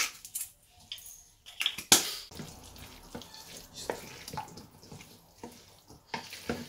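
A pepper grinder clicks a few times with a sharp knock, then a wooden spoon mixes dressed pasta salad in a stainless steel bowl, giving wet squishing and soft scraping.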